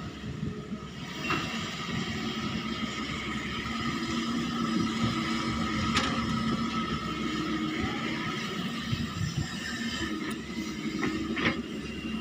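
Excavator engine running steadily under load, with a few sharp knocks about a second in, halfway through and near the end.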